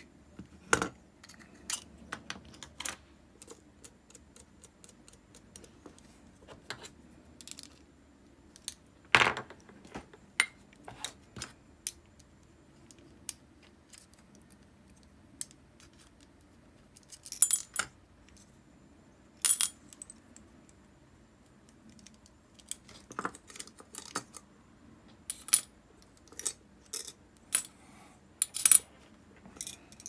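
Irregular clicks and small metallic clinks of a baitcasting reel's small metal parts being handled, with a louder clink about nine seconds in and busier bursts of clinking later on.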